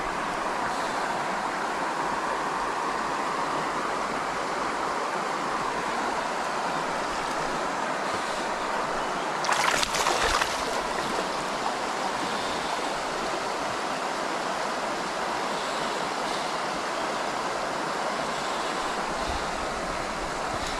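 Shallow river water running over stones, a steady rushing, with a brief splash about halfway through.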